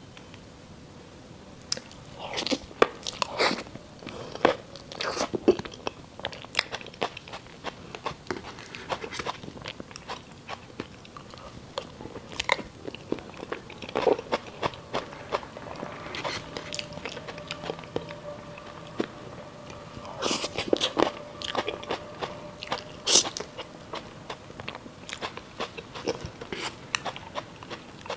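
Close-miked chewing and wet mouth sounds of a person eating a soft cream-layered persimmon crêpe cake, with many sharp irregular clicks and smacks.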